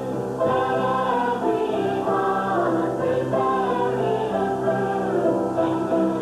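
Choir singing in sustained chords, the held notes changing about every second.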